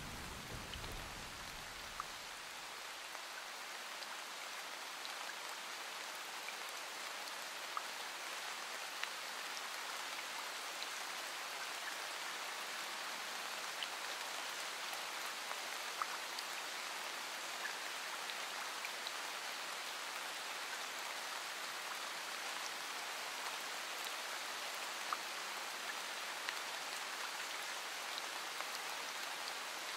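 Steady rain falling, with scattered ticks of single drops. A low rumble of thunder fades out in the first couple of seconds.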